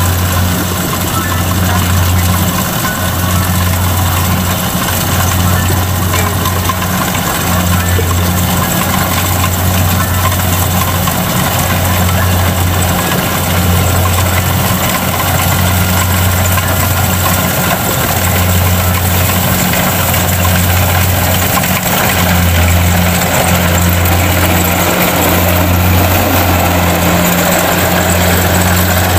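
Kubota DC-70 rice combine harvester running steadily, its diesel engine giving a constant low hum that dips briefly every few seconds over an even mechanical whir.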